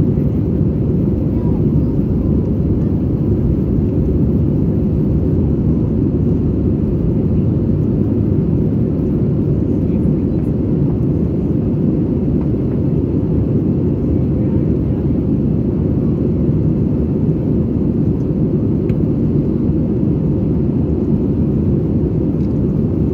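Steady cabin noise inside an Airbus A320 in flight: an even, low rumble of engines and airflow.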